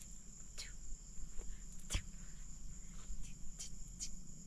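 Night insects, crickets, keeping up a steady high-pitched trill, with a few short falling chirps and one sharp click about two seconds in.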